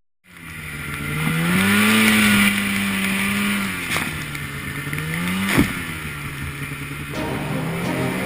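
Snowmobile engine running under varying throttle, its pitch climbing, holding, then dropping and climbing again, over a rush of wind and snow. Two sharp clicks cut through, the second louder, about two-thirds of the way in.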